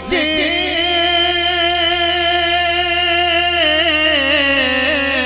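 Man singing a naat into a microphone, drawing out one long held note that wavers briefly near its end and sinks slightly in pitch.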